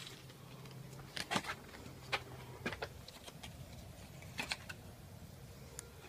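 A paper flyer being tucked into a metal lever door handle: several short, sharp clicks and rattles of the handle with paper handling, in small clusters.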